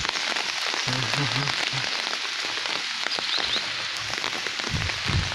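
Steady hiss of rain with scattered drip ticks. A few short low pulsed notes come about a second in, and a low rumble starts near the end.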